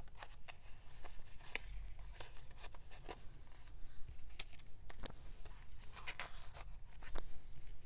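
Paper cutouts and clear plastic page pockets rustling and crinkling as the cutouts are handled and slid into the pockets, with irregular small crackles and taps.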